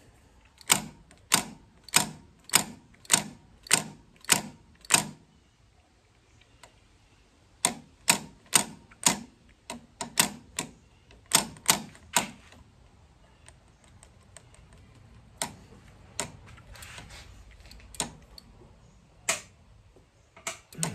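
Honda ST1300 clutch lever being flicked and let snap back, making a run of sharp clicks about 0.6 seconds apart, then after a pause a second run, then a few scattered single clicks. It is done while bleeding the clutch hydraulics, the snapping vibration helping air bubbles work out of the line.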